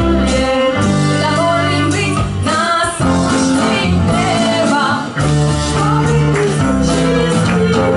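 Live folk band playing: women's voices singing over strummed acoustic guitar and hand percussion, the music running on without a break.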